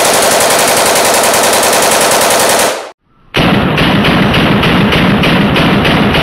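AR-15 rifle in a Slide Fire bump stock bump-firing a fast continuous string that sounds like full-auto fire. It breaks off sharply about three seconds in, and the fire is heard again slowed down, with the shots spaced about three a second.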